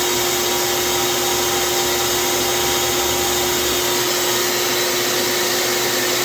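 CNC machine running: a steady, unchanging motor whine with a constant hum over a hiss.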